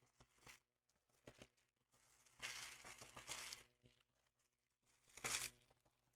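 Empty booster-pack wrappers and packaging being crumpled and torn by hand: a longer crinkling stretch about two and a half seconds in, then a shorter one near the end.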